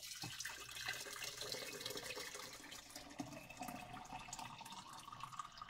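Boiling water being poured in a steady stream into a glass jug to make vegetable stock, with a faint tone that rises as the jug fills.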